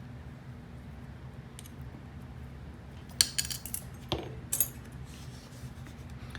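Small metallic clicks and taps as the retaining clip is worked back onto a Fab 100 lock cylinder. There is one faint click early, then a cluster of sharp clicks about three seconds in and a couple more around four and a half seconds, over a steady low hum.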